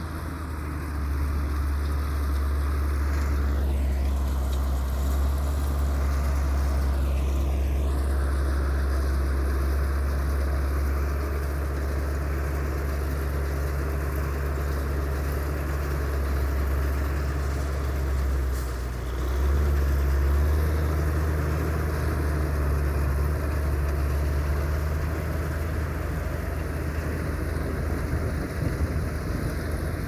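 Tractor engine running steadily with a deep, even hum, briefly dipping and then swelling a little after halfway.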